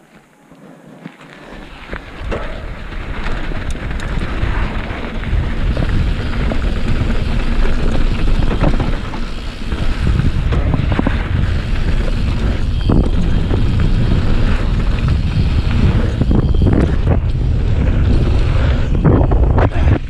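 Wind rushing over the microphone and tyres running on loose dirt as a mountain bike descends a dirt jump trail, with frequent rattles and knocks from the bike over the bumps. It builds over the first couple of seconds as the bike gathers speed, then stays loud.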